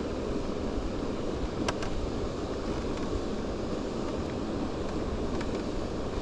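Steady wind noise buffeting the microphone, with water noise under it and a single sharp click about a second and a half in.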